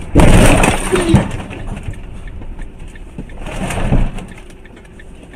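Vehicle crash on a highway: a sudden loud crunching impact about a quarter of a second in, a sharp knock about a second in, then noise that dies away, with a smaller swell of noise near the end.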